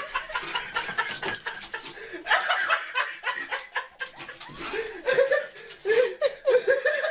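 Human laughter in quick, repeated bursts.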